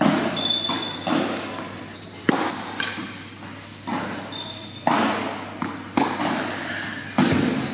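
Tennis balls struck by rackets and bouncing on the court during a rally, about six sharp hits echoing through a large hall. Short high squeaks of shoes on the court come between the hits.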